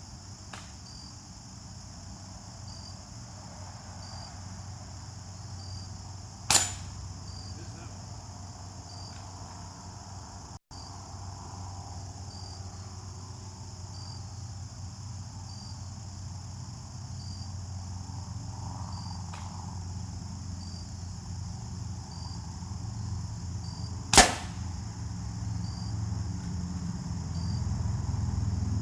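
Two single gunshots, sharp cracks about 17 seconds apart, while crickets chirp steadily.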